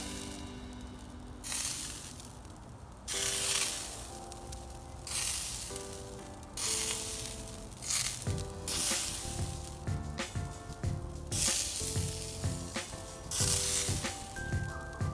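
NY strip steaks sizzling over hot wood coals in a tandoor oven, the hiss swelling and fading in repeated surges about a second long.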